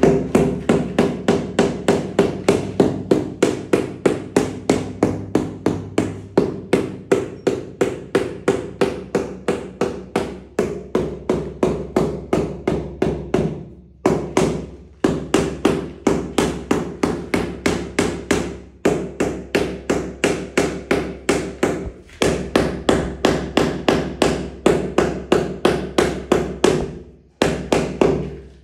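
Rubber mallet tapping ceramic floor tiles to bed them into the mortar: fast, even strikes, about three or four a second, each with a short hollow ring from the tile, with a few brief pauses.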